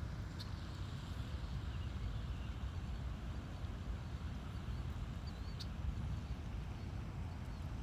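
Steady low rumble of wind on the microphone, with a few faint high bird peeps now and then.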